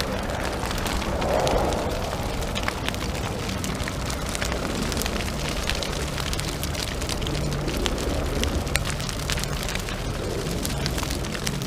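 Fire sound effect: a steady rushing crackle with many small pops and a low rumble underneath.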